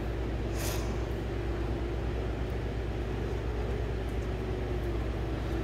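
A steady low machine hum, with a short rustle about half a second in.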